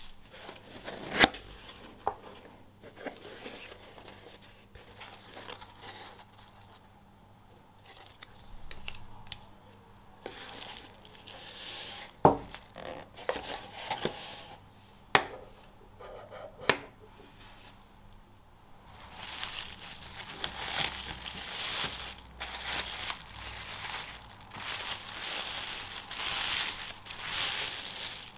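Tissue paper and packaging crinkling and rustling as a ceramic coffee dripper is unwrapped from its box, with a few sharp clicks and knocks along the way. The crinkling is densest and loudest over the last third.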